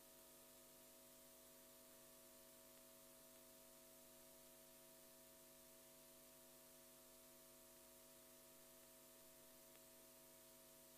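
Near silence: a faint steady hum with hiss, unchanging throughout.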